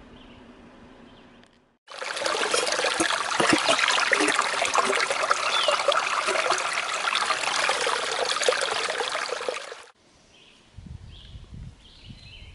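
Rushing water of a stream or small cascade, a loud steady rush that starts abruptly about two seconds in and cuts off abruptly about eight seconds later.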